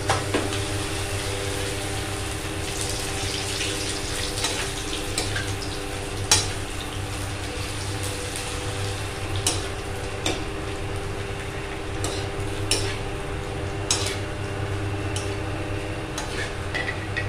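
Rice papad pieces frying in hot oil in a kadhai, a steady sizzle, with sharp clinks and scrapes every second or two as a steel slotted spoon stirs them against the pan. A steady low hum runs underneath.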